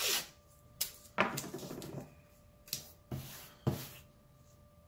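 Blue painter's tape being pulled off the roll and torn in several short rasping rips, one of them drawn out for nearly a second, over a faint steady hum.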